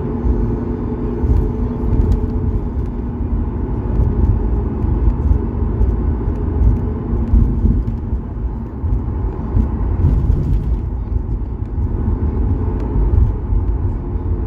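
Cabin noise of a Boeing 737-8200 taxiing, heard from a window seat over the wing: a steady, uneven low rumble of its CFM LEAP-1B engines at taxi power and the wheels rolling. A faint low hum in the first few seconds fades away.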